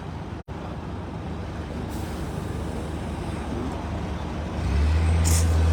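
A motor vehicle engine running steadily, a low rumble over outdoor noise that grows louder near the end. The audio cuts out for an instant about half a second in.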